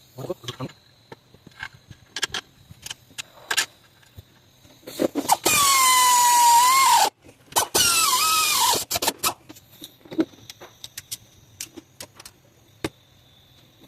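Two bursts of about a second and a half each from a power tool driving the alternator's mounting bolts, a loud high squealing whine whose pitch sags as the bolt tightens. Before and after come scattered clicks and knocks of tools and metal parts being handled.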